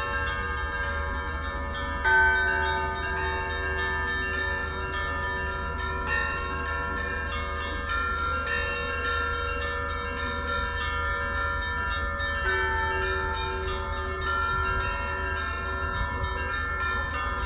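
Orthodox church bells ringing together: smaller bells chime on continuously while a heavier bell strikes loudest about two seconds in, and again around six and twelve and a half seconds. A low steady rumble runs underneath.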